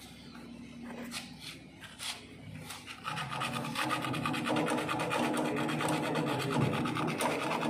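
Sandpaper rubbed rapidly back and forth on a refrigerator compressor's copper pipe stub, scouring it clean for brazing. The fast, steady scraping starts about three seconds in, after a few light clicks.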